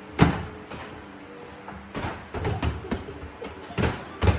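Boxing-glove punches landing: one loud thud just after the start, then a string of about five more thuds from about two seconds in.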